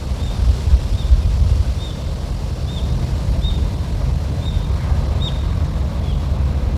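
Wind buffeting the microphone with a heavy low rumble, while a small bird repeats a short high chirp about once every 0.7 seconds.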